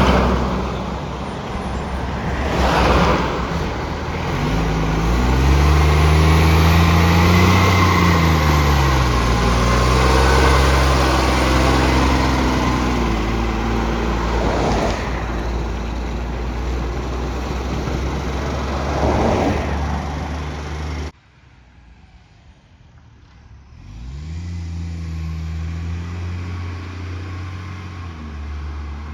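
Garbage truck diesel engine with a leaking exhaust, revving up and easing off. Several short air hisses from the air brakes are heard. The engine sound drops off sharply about two-thirds of the way in, then comes back a few seconds later as the engine picks up again.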